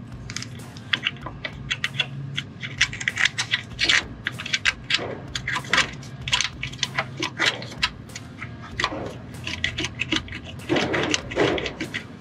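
Irregular plastic clicks, ticks and light rattles from hands fitting a transfer case control module back onto its bracket and shifting the wiring harness around it.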